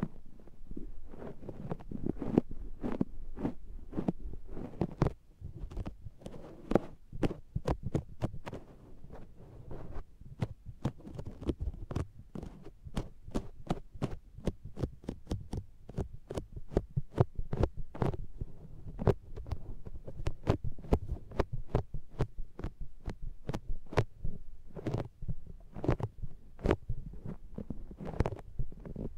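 Wedge makeup sponge patting and pressing on the silicone ear of a binaural microphone, right at the mic: a quick run of soft, sticky suction-like thuds and pops, several a second, with a short lull about five seconds in.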